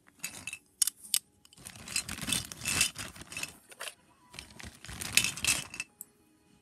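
Handling noise: irregular clicks, scrapes and rustles of objects being moved about, pausing briefly near the end.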